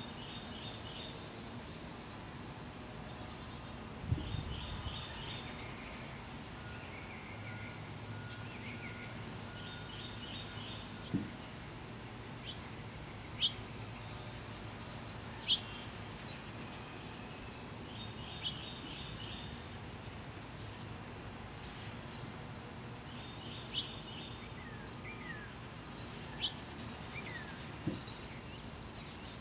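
Songbirds singing in the background: short rapid trill phrases repeated every few seconds, scattered sharp chirps and a few downslurred whistled notes near the end, over a steady low outdoor background noise. A brief low thump about four seconds in.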